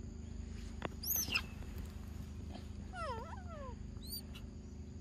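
Young macaques calling: a sharp high-pitched squeal about a second in, a couple of falling-and-rising calls around three seconds, and a short high chirp soon after.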